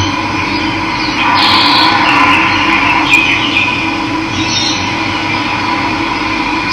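Steady rush of running water with wild birds chirping over it, the chirps coming in short bursts a few times.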